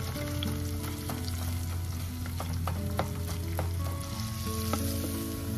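Sliced onions sizzling in hot oil in a pot, stirred with a wooden spatula that taps and scrapes against the pot now and then. Soft background music with held notes runs underneath.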